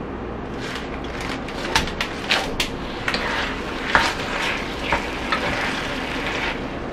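Stir-frying dry curry in a pan: a steady sizzle with repeated scrapes and knocks of a spatula against the pan.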